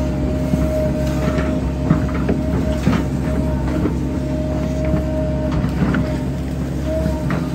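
Volvo hydraulic excavator running steadily, heard from inside the cab: a constant low diesel hum with a higher whine that comes and goes several times as the arm and bucket move, and scattered knocks and rattles.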